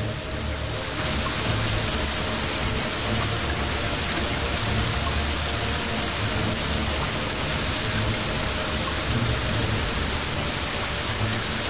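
Steady hiss like rain, with a low uneven rumbling underneath.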